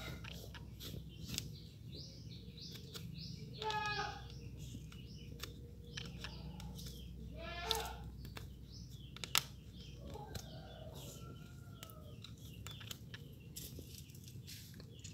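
A goat bleating twice, short quavering calls about four and eight seconds in, with fainter animal calls later, bird chirps and a few sharp clicks.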